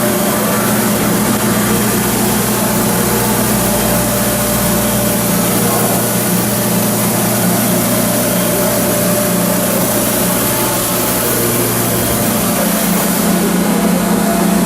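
Kekeisen UBF 3000/15 bed-type milling machine traversing its X axis the full travel: a steady mechanical hum of the axis drive over the machine's constant running noise. A low tone in the hum stops near the end, as the axis motion ends.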